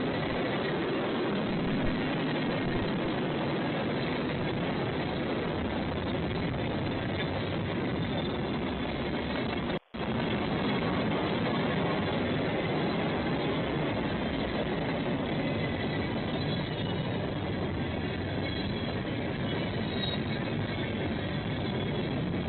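Steady rolling rumble and rush of a passing train, with no horn. The sound drops out briefly about ten seconds in, then carries on the same.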